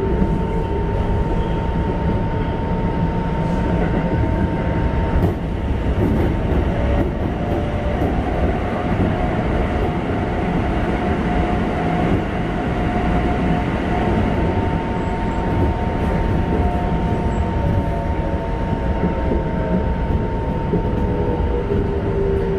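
Running noise heard inside a Keikyu 1500-series electric train motor car with Mitsubishi GTO-VVVF traction control: steady noise of wheels on rails with a constant whine. A motor tone rises briefly at the very start, and motor tones fall in pitch near the end.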